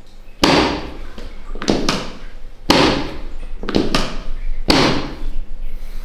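Hands pressing and rubbing over a patient's lower back and hips through fabric, making about five rustling strokes, each starting sharply and fading quickly.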